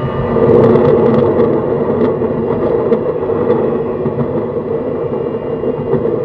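Running noise of a JR East E131 series 600 electric train, heard from on board: a steady rumble of wheels on the rails, with a few faint clicks about a second in.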